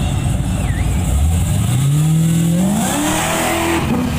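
Chevrolet Silverado pickup's engine launching off the line: the revs climb steadily for about three seconds as it accelerates, with a harsh rush building near the end before the pitch falls away.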